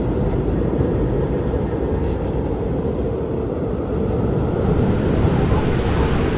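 FPV quadcopter in flight, heard through its onboard camera microphone: a dense low rumble of wind buffeting the mic mixed with the motors and propellers, getting brighter and hissier in the last couple of seconds.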